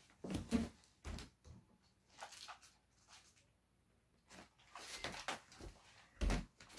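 Scattered knocks and thumps of someone moving about and handling things out of sight, with quiet gaps between them; the loudest thump comes near the end.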